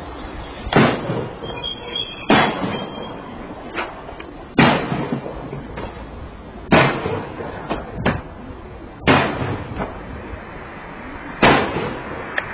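Repeated heavy blows struck against a car's body: six loud bangs about two seconds apart, each ringing briefly, with smaller knocks in between.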